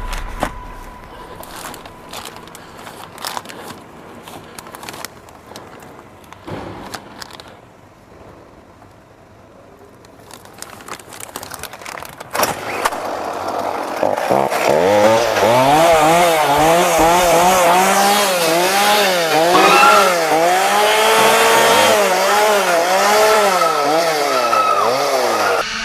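Chainsaw engine being revved up and down over and over, starting about halfway in and running loud to the end. Before it come scattered knocks and clicks.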